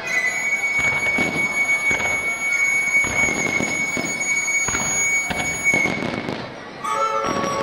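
Fireworks display: aerial shells bursting in a string of sharp bangs under a steady high-pitched whistle that stops about six seconds in. Music with flute and strings comes in near the end.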